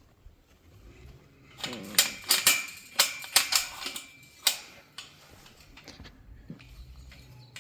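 A quick run of sharp clicks and knocks, about a dozen over three seconds, with a faint high steady tone under the middle of it.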